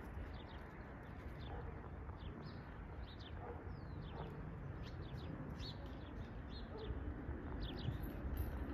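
Small birds chirping in many short, quick calls over a steady low background rumble that swells near the end.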